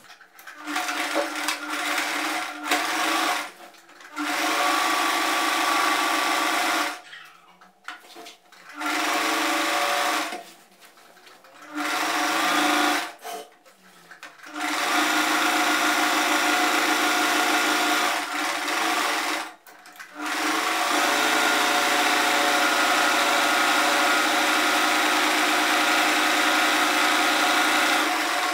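Singer Promise electric sewing machine stitching denim, running in several short bursts with pauses between, then in two long steady runs of several seconds each.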